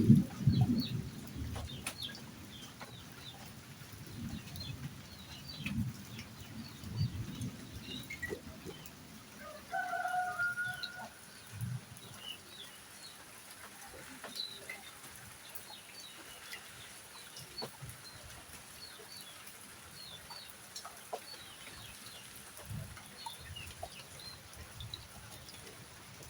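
Chickens clucking in a yard while small birds chirp in short high notes throughout, over a faint steady high hiss. A single held call stands out about ten seconds in, and a few low knocks come in the first seconds.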